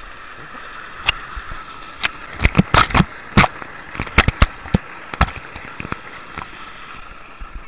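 Water rushing and splashing over a small rocky waterfall, heard through a camera held right in the flow. About one to five seconds in comes a cluster of sharp splashes and knocks against the camera.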